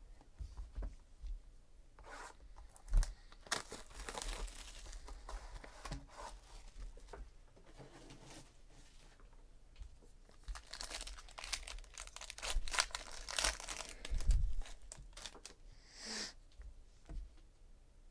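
The gold foil wrapping of a Panini Gold Standard football card box being torn open and crumpled, in two bouts of tearing and crinkling a few seconds each, with a short swish near the end.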